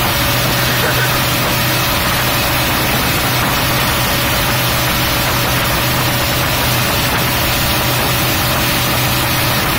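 Tow boat's engine running steadily at speed, a constant low hum under an even rush of wind and churning wake water.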